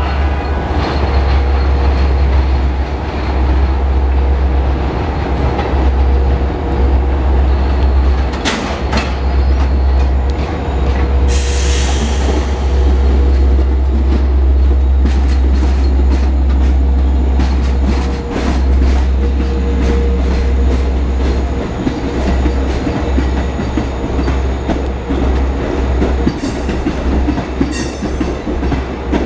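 Long Island Rail Road train of EMD DE30AC diesel-electric locomotives and Kawasaki C3 bilevel coaches rolling slowly past, with a steady deep rumble throughout. There is a brief hiss about eleven seconds in. From the middle on come rapid, irregular clicks of wheels over rail joints and switches as the coaches go by.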